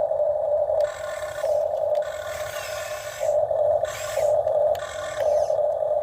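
Huina RC excavator's electric motors and gearboxes whining in short spurts over a steady hum, the pitch and loudness changing as each function starts and stops.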